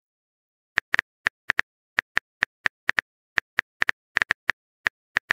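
Phone-keyboard typing clicks from a texting-app animation: a run of short, sharp taps at an uneven pace, a few a second, starting about a second in.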